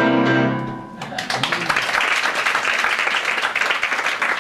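The song's loud final note ends about a second in. Audience applause then breaks out and keeps going.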